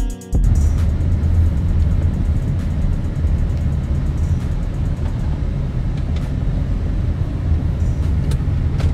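Steady low road rumble of a car driving, heard from inside the cabin through a phone's microphone, with a few faint clicks in the second half.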